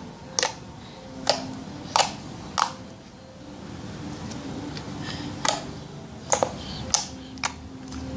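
Thick creamy slime being squeezed and played with by hand, giving a series of sharp clicks and pops, with a pause in the middle.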